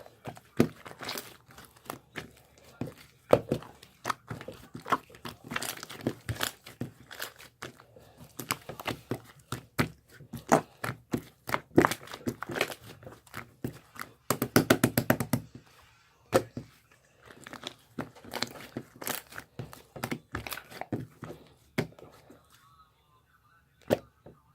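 Crinkling and rustling with many sharp clicks and taps, and a quick run of rapid clicks about fifteen seconds in; it goes quiet near the end apart from one click.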